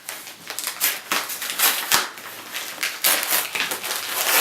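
A package being opened by hand: a run of irregular rasps, scratches and crinkles as the packaging is torn and handled.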